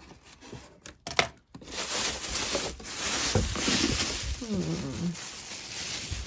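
Thin plastic bag crinkling and rustling as a hand pulls it open and digs into the jewelry inside, with a sharp click about a second in.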